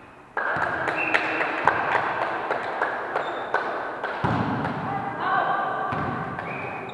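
Volleyball game sounds echoing in a large sports hall: thuds of the ball and players' feet on the wooden court, with players' voices. The sound comes up suddenly about a third of a second in.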